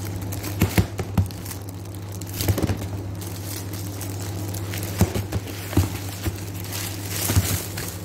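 Tissue paper crinkling as oranges are unwrapped, with several light knocks as the fruit is set down in a plastic basket, over a steady low hum.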